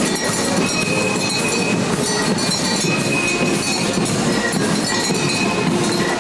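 Horse-drawn wagon with large wooden spoked wheels rolling past on a paved street: a steady rolling rumble and grind, with short high squeaks now and then.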